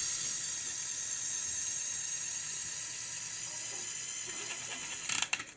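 Lego Power Functions motor and plastic gearing driving a linear actuator, running with a steady whirring hiss, then a few clicks about five seconds in as it stops.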